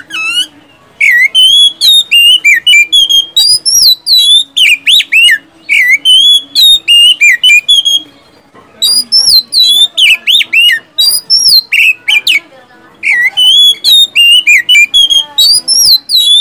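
Oriental magpie-robin (kacer) singing loudly: fast runs of sharp whistled notes sweeping up and down, with short breaks about 8 and 12 seconds in.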